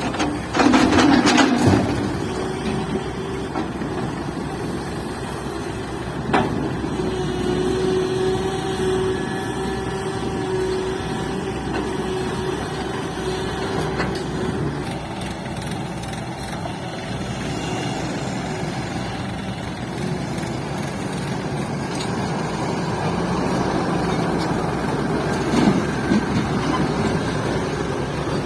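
Tata Hitachi excavator's engine and hydraulics running steadily while loading a tipper. There is a loud rushing burst about a second in, and a steady whine for several seconds in the middle.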